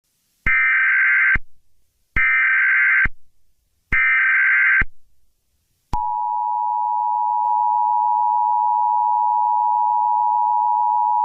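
Emergency Alert System signal: three bursts of digital SAME header data, each about a second long, then the steady two-tone EAS attention signal starting about six seconds in.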